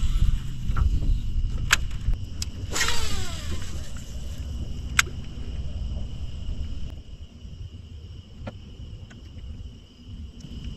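Wind rumbling on the microphone, with scattered sharp clicks and, about three seconds in, the falling whir of a casting reel's spool as a lure is cast. A steady high-pitched drone runs underneath.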